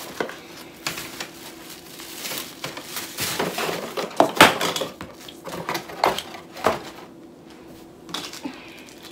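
Cardboard box and plastic-wrapped parts being handled and unpacked: irregular rustling, clicks and light knocks, the loudest a little past four seconds in.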